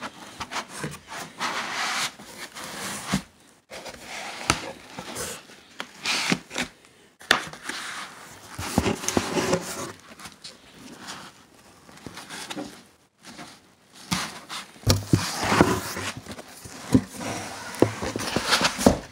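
Foam packing pieces being pulled and scraped out of a cardboard box: irregular scrapes, rustles and knocks, busiest in the last few seconds.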